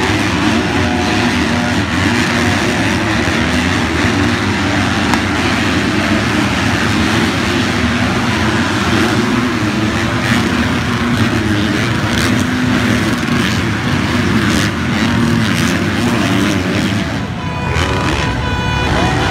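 Motocross dirt bikes racing past, their engines at high revs and rising and falling in pitch as the riders open and close the throttle.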